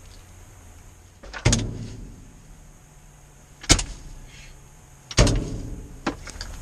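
Three sharp bangs, each dying away quickly, about two seconds apart.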